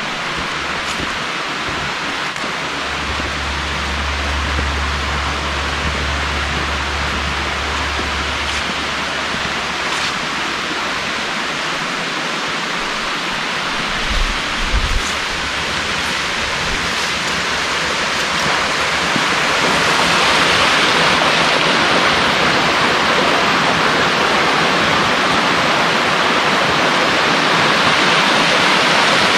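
Steady rushing of flowing water, a stream or small waterfall, getting louder about two-thirds of the way through as it comes closer. Two brief low bumps about halfway through.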